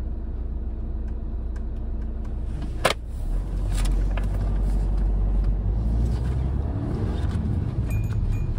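Steady low engine and road rumble inside a campervan's cab while driving in town. A single sharp click comes just before three seconds in, after which the rumble grows heavier and louder.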